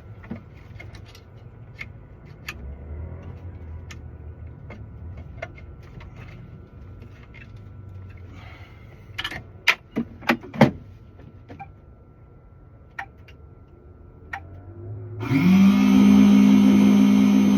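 Clicks and several sharp knocks of tools and parts being handled. Then a key-cutting machine's electric motor spins up, its pitch rising quickly before settling into a loud steady whine.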